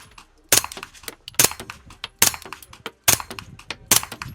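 Suppressed 9mm firing 115-grain rounds: five shots in steady succession, a little under a second apart.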